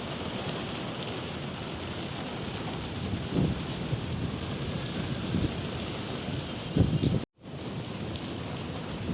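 Heavy rain falling steadily in a continuous hiss, with a few short low rumbles. The sound cuts out completely for a moment about seven seconds in.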